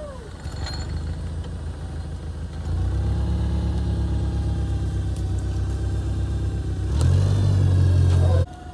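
Propane-fuelled Yale forklift engine running, growing louder in two steps as it is worked, then cutting off abruptly near the end.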